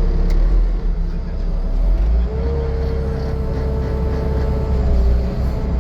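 2021 Bobcat T770 skid steer's four-cylinder diesel running with a deep steady rumble. About two seconds in, a whine rises and holds for a couple of seconds before easing, as the machine works under hydraulic load.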